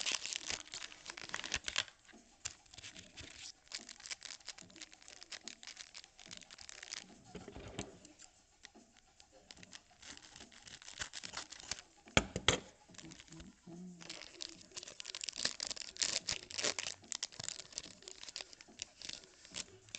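Foil wrapper of a Topps Chrome baseball card pack crinkling and tearing as it is opened, then chrome cards and plastic being handled with steady crackling, and a couple of sharp louder knocks about twelve seconds in.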